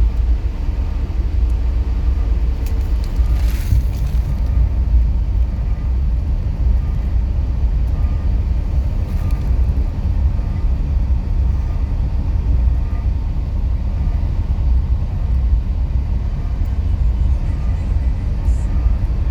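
A train running past with a steady low rumble, faint regular clicks over the top.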